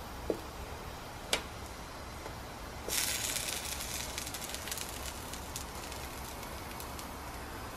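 Metal tongs click twice against the grill, then potato and sweet potato slices sizzle and crackle on the hot plate of a George Foreman grill. The sizzle starts suddenly about three seconds in and slowly dies down.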